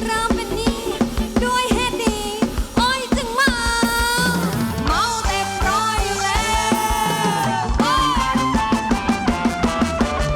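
Live Thai ramwong band music played over a PA: a drum kit keeps a steady beat under a wavering lead melody.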